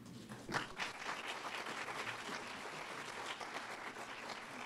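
Audience applauding: many hands clapping, starting about half a second in and holding steady.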